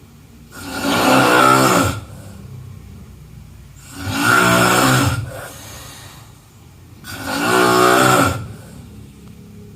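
A person snoring: three long snores about three seconds apart, each lasting over a second, with quieter breathing in between.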